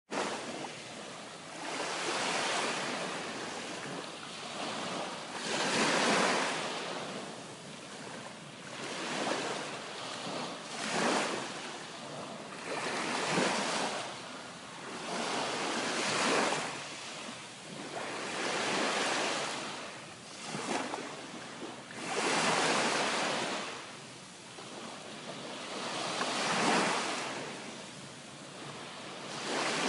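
Ocean waves breaking and washing ashore in a steady series, each surge swelling and falling away every few seconds.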